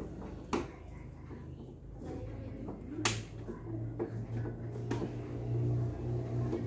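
Hands handling the plastic rear cabinet of a Panasonic CRT television, giving a few sharp plastic clicks and knocks, the loudest about three seconds in. A low steady hum runs underneath from about a second in.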